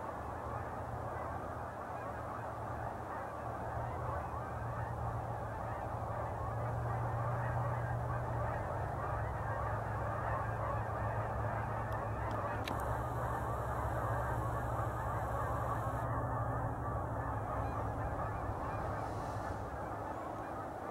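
A flock of Canada geese in flight honking continuously, many calls overlapping, over a steady low rumble that fades out near the end.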